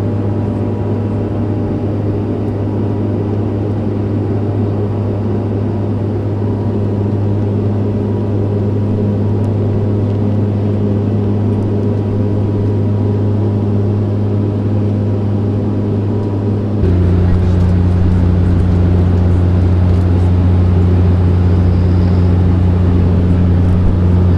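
Steady propeller drone of a De Havilland Dash 8-400 turboprop airliner climbing after takeoff, heard inside the cabin. About 17 seconds in the drone steps down slightly in pitch and gets a little louder.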